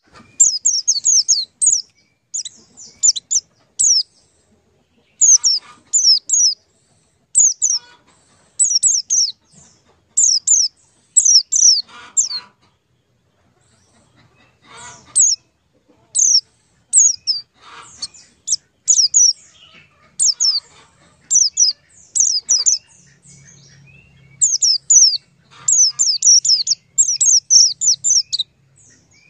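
A small bird chirping: rapid high chirps that each slide downward, coming in quick runs of several with short pauses between.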